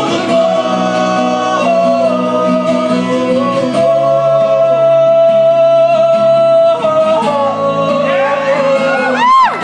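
Live acoustic music: a man singing long held notes over acoustic guitars, with a quick swoop up and back down in pitch near the end.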